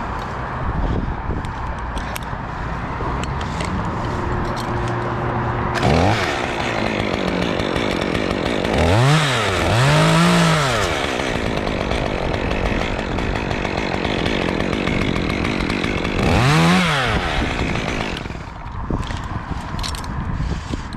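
Two-stroke chainsaw running low, then revved up and back down three times, about 9, 10 and 17 seconds in.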